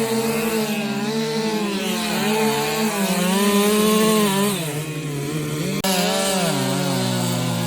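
Chainsaw cutting wood, its engine pitch sagging and rising as it bogs under load in the cut. The sound breaks off abruptly about six seconds in, then resumes.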